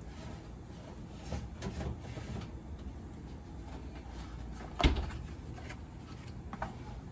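Kitchen handling knocks as a foam egg carton is fetched and handled: a few light clicks and knocks, then one sharp knock about five seconds in and a smaller click near the end, over a low steady hum.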